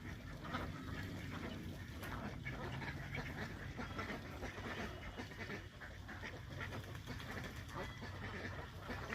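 Ducks quacking, a steady run of many short, irregular calls.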